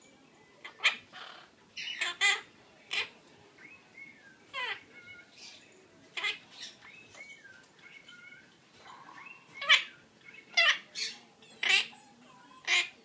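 Quaker parrot (monk parakeet) calling: a string of short, sharp squawks and chirps mixed with whistled notes that glide up and down in pitch, busiest in the last few seconds.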